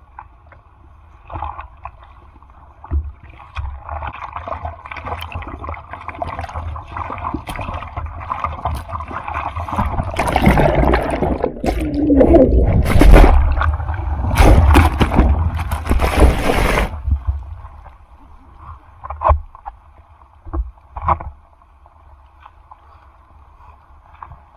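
Typhoon surf: ocean water rushing and splashing close around a surfer's camera. It builds gradually, is loudest about halfway through, then cuts off suddenly, leaving quieter water with a few brief splashes.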